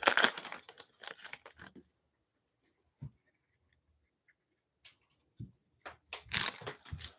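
Trading cards sliding and rustling against each other in gloved hands: a spell of scraping at the start, a soft tap about three seconds in, then a few clicks and another spell of scraping near the end.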